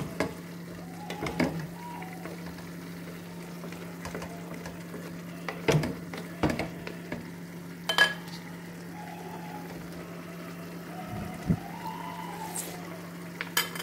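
A cooking utensil knocking and scraping against a pan now and then, about half a dozen sharp clinks spread through, as vegetables and chicken liver are stirred in it. A steady low hum runs underneath.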